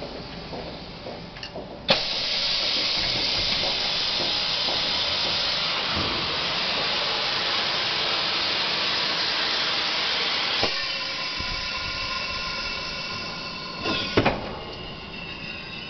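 Macpi double-table heat transfer press working: a sharp click about two seconds in, then a loud steady hiss for about nine seconds. A clunk cuts the hiss down, a hum of several steady tones follows, and two knocks come near the end.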